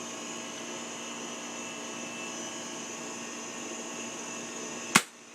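Steady background hum, then about five seconds in a single sharp crack as a Daisy airsoft gun fires a metal BB into a soda can, tearing the can in half.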